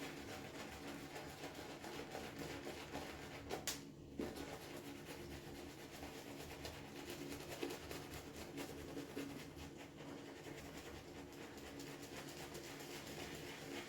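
A shaving brush working Mitchell's Wool Fat soap into lather, making a steady wet swishing with a fine crackle of bubbles.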